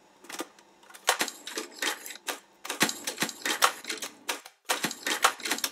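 Typewriter keys clacking in an irregular run of sharp taps, the opening of an instrumental music track laid over the footage.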